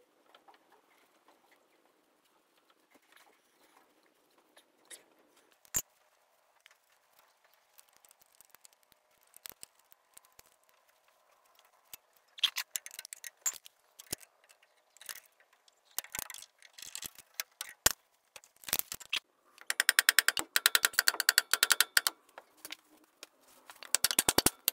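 Three-leg puller on a crankshaft pulley being worked: scattered metal clicks and taps, growing busier after about twelve seconds, with a fast run of ticking around twenty seconds in.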